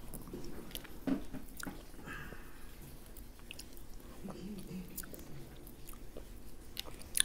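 Close-up chewing and biting while eating shellfish, with small clicks and cracks as meat is picked from the shells by hand, and one sharp click near the end.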